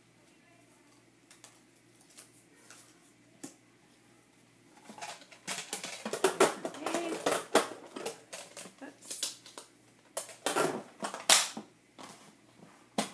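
Cut-out paper letters and small plastic bins being rummaged through by hand: light clicks and rustles, sparse at first, then busy and quick from about five seconds in.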